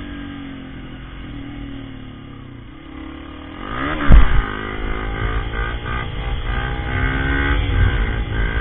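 Motorcycle engine running at low revs, its note sagging. About four seconds in comes a loud thump, and the engine note climbs and then holds steady and louder.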